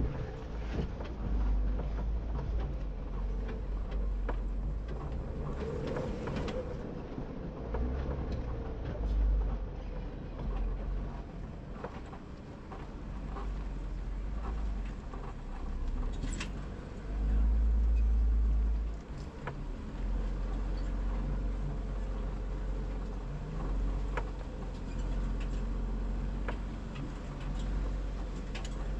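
Off-road Jeep crawling slowly on a rocky trail: a low, steady engine drone under a deep rumble that swells and fades, loudest about 17 seconds in. Scattered short clicks and knocks run through it.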